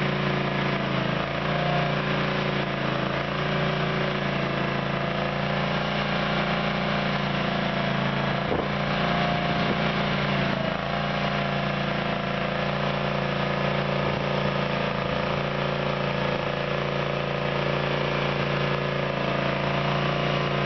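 Gas-powered Diamond Products CB24H hydraulic power unit's Honda GX670 V-twin engine running at a steady speed.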